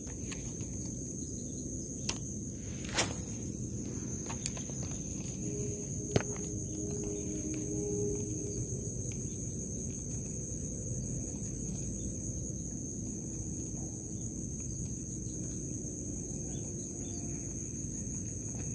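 A steady, high-pitched chorus of insects, such as crickets, chirring without a break. A few short sharp clicks come in the first several seconds.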